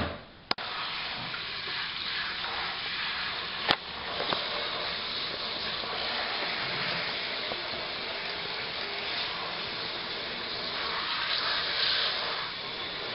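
Water spraying steadily from a handheld shower head onto a wet Persian cat in a bathtub, starting about half a second in, with one sharp click a few seconds later.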